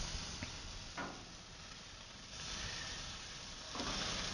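Steaks sizzling faintly on a grill grate, with a couple of light clicks of a fork against the grate in the first second. The sizzle grows louder near the end as a steak is lifted and turned.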